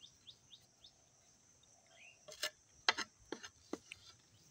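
Quiet outdoor air with a few faint, short bird chirps, then four or five sharp, irregular clicks and knocks between about two and four seconds in.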